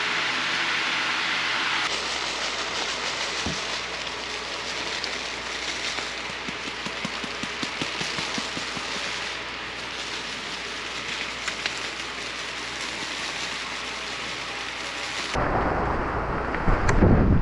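Heavy rain pelting down, with scattered sharper ticks of drops striking. About fifteen seconds in, it gives way abruptly to gusty wind buffeting the microphone.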